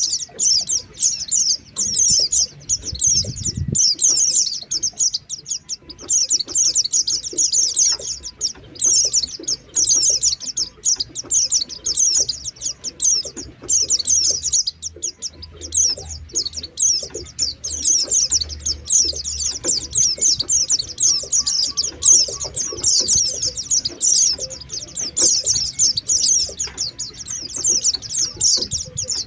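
White-eyes (pleci) chattering in a dense, continuous stream of rapid high-pitched chirps and short falling notes. This is a pleci lure call, played to bring wild white-eyes down. The chatter breaks off briefly twice, about six seconds in and about halfway through.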